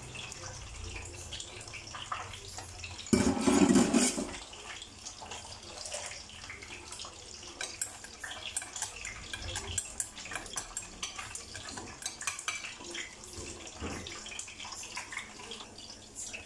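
Chopped garlic tipped into hot oil in a stainless steel pot: a loud sizzle and clatter about three seconds in, lasting about a second. Then the garlic fries with a light crackle and scattered pops while chopsticks stir it against the pot.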